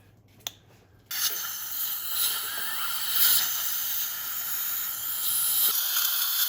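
Dental surgical suction hissing steadily. It starts abruptly about a second in, after a single faint click.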